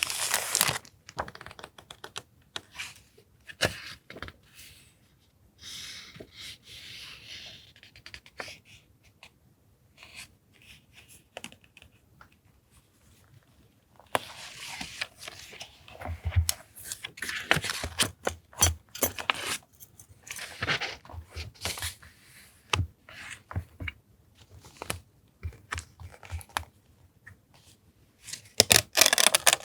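Paper and stationery being handled on a desk: sheets and sticker packets rustling and crinkling, with scattered taps and clicks. The loudest rustles come at the start and near the end.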